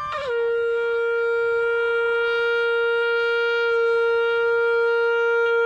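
Conch shell blown in one long, steady blast; its note drops slightly just after it starts and is then held level.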